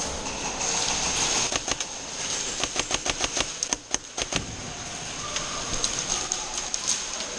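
Airsoft guns firing: a run of sharp, irregular clicks and snaps, thickest in the middle, over a steady hiss.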